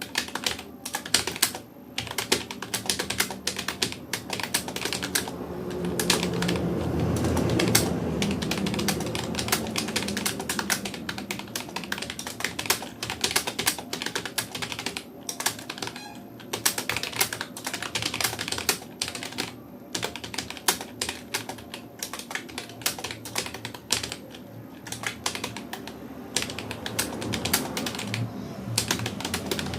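Rapid, continuous typing on a Rapoo computer keyboard at touch-typing speed, with the keys clicking in quick runs broken by a few brief pauses. A low rumble swells in underneath a few seconds in and again near the end.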